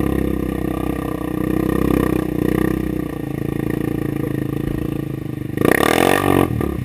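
ATV engine running steadily, then revved hard for about a second near the end, the pitch climbing and falling back.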